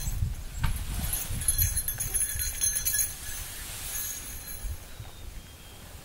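Footsteps crunching and squeaking in very cold, dry snow for the first few seconds, over a low rumble.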